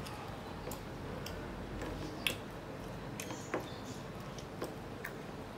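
Eating sounds of a man eating rice and mutton by hand: irregular wet clicks and smacks of chewing, about one a second, the loudest a little over two seconds in, over steady background noise.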